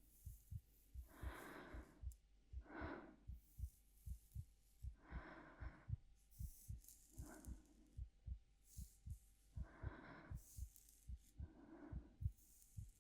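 Steady heartbeat in lub-dub pairs under a woman's soft, slow breaths in and out every second or two, with faint crisp rustles of hair play in between.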